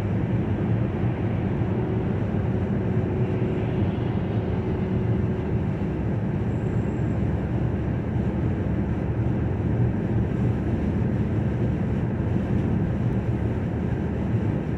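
Steady cabin noise of a car driving along a road: tyre and road rumble with a low engine drone, unchanging in level.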